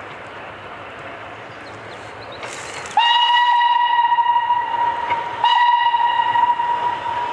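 Steam locomotive whistle: one long blast about three seconds in, a short break, then a second blast that fades near the end, over the steady running noise of the approaching train.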